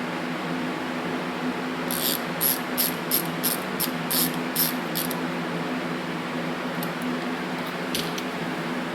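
Compressed-air blow gun on an air hose fired in about nine quick hissing spurts over some three seconds, then once more near the end, over a steady background hum.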